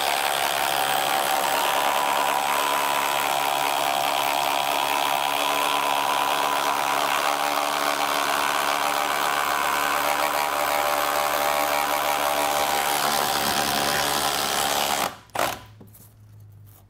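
Milwaukee M18 Fuel Surge hydraulic impact driver boring a hole through a wooden board with an auger bit, running steadily under load for about fifteen seconds, then stopping.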